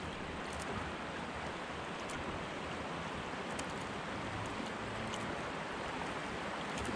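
Steady rush of river water, an even hiss with no change in level.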